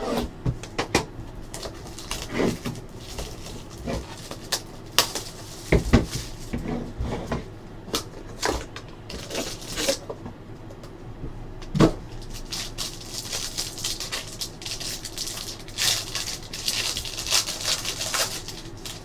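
A sealed trading-card box being handled and its cardboard flaps opened, then a foil card pack crinkling in the hands, with scattered clicks and knocks against the table.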